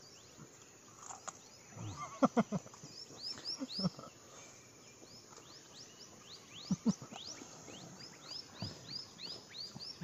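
A wild animal calling in the forest: a long series of short rising chirps, repeated many times. A few brief louder sounds come about two and four seconds in and again near seven seconds.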